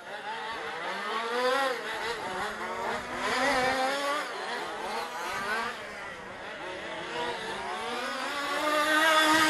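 Two-stroke petrol engines of 1/5-scale RC off-road buggies, among them a TLR 5ive-B with an MRCP Racing engine, revving up and down as they race the circuit, their pitch rising and falling. Louder near the end as a buggy comes close.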